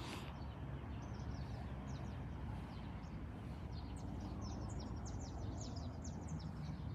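Small birds chirping in quick, high, short notes, most densely in the second half, over a steady low background hum.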